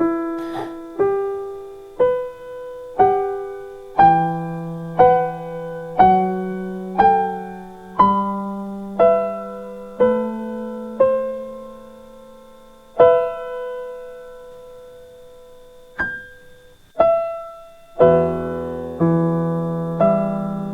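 Slow instrumental piano music: a note or chord struck about once a second, each left to ring and fade. A longer held note rings out a little past the middle, and fuller, lower chords join near the end.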